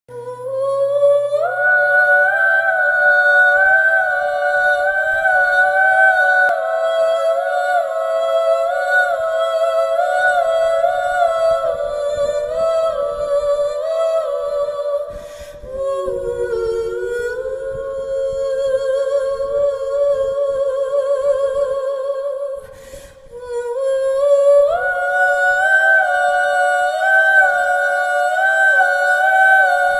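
A slow, wordless hummed melody in long held notes that step up and down, with slight vibrato. It pauses briefly about fifteen seconds in and again around twenty-three seconds.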